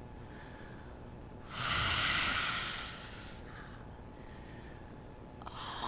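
A person exhaling forcefully through the open mouth once, a loud breathy exhale lasting about a second and a half, starting about a second and a half in: a cleansing yoga exhale of the lion's-breath kind.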